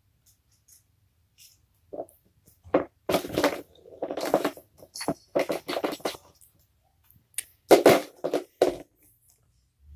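Plastic circular ball-track cat toy rattling and rumbling in several short bursts as cats bat at it and the ball rolls around inside its track.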